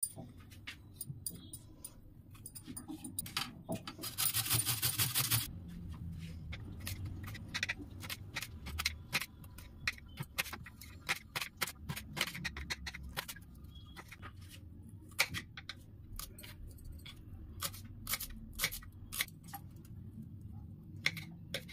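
Kitchen knife chopping green beans and green chillies on a wooden cutting board: a string of sharp knocks as the blade strikes the board, with a quick, dense run of chops about four seconds in.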